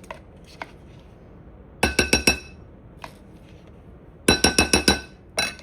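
A utensil tapped quickly against a glass bowl or jar, ringing: a run of about four taps, then about six more, then one last tap near the end. This is typical of knocking yogurt off a spoon while adding it to the dressing.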